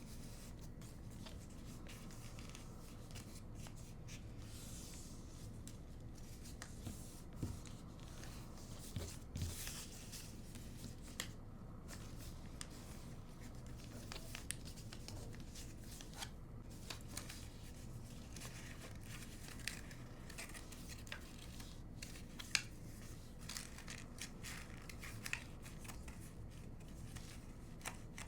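A sheet of origami paper being folded and creased by hand: faint rustling and crinkling with scattered sharp little crackles and ticks as the folds are pressed.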